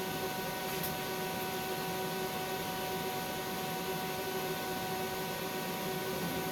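Steady hiss with several constant hum tones underneath, unchanging throughout.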